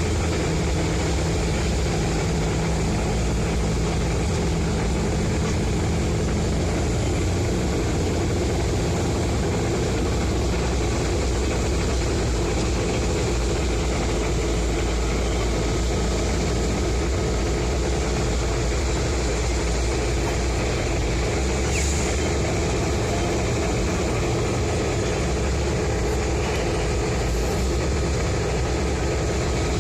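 Heavy diesel engine running steadily at a low, even idle, with its low hum shifting slightly about seven seconds in.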